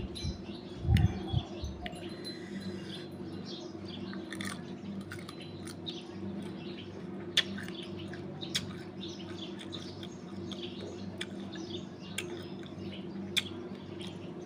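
Eating sounds: sour tamarind being chewed, with scattered sharp clicks and wet mouth smacks over a steady low hum, and a couple of soft thuds about a second in.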